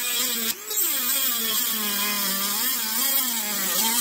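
Handheld rotary tool with a cut-off wheel cutting through a flat aluminum bar: a high whine with a gritty hiss. The pitch sags and recovers as the wheel is pressed into the metal, and it eases off briefly about half a second in.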